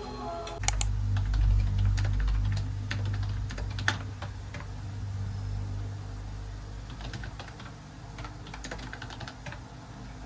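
Typing on a computer keyboard: irregular key clicks, with a low rumble underneath for the first few seconds. Background music cuts off just as the typing begins.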